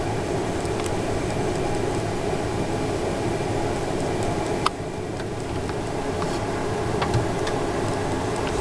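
Steady hum and hiss of air handling and equipment in a hospital neonatal intensive care room, with a few faint ticks and one sharp click a little before the middle.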